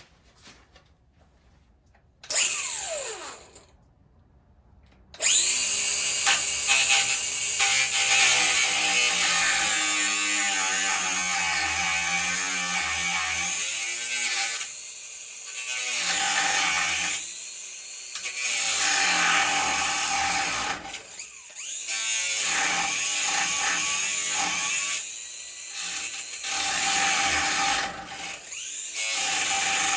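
Grinder cutting small metal pieces. A short spin-up about two seconds in winds down with a falling whine. From about five seconds in comes long stretches of loud grinding with a steady motor whine, broken by several short pauses.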